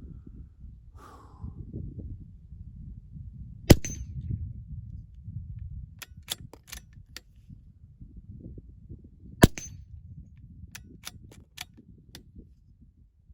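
Two shots from a Ruger Precision Rimfire .22 LR bolt-action rifle, about six seconds apart, each a sharp crack. After each shot comes a run of small metallic clicks as the bolt is worked to chamber the next round.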